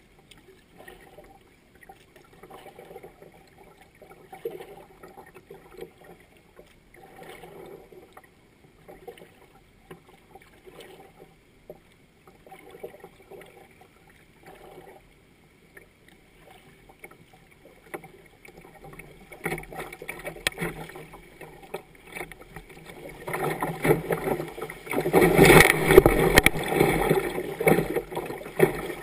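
Kayak paddle strokes dipping softly into slow river water, then fast water rushing and splashing against the kayak as it runs a riffle in the last third, loudest near the end.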